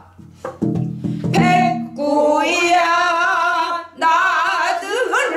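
A woman singing a Korean danga in pansori style. After a brief breath at the start, she sings long held notes with wide, wavering vibrato.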